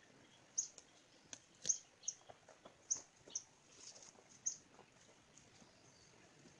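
Small forest bird giving a quick series of short, high, thin chirps, with a few faint clicks among them.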